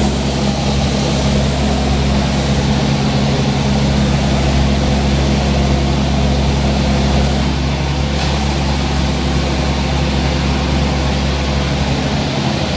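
A large engine or machine running steadily at a constant, unchanging pitch.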